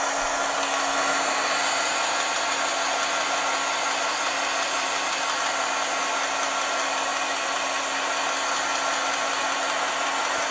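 Handheld craft heat tool blowing hot air to dry ink on paper: a steady rush of air over a constant motor hum.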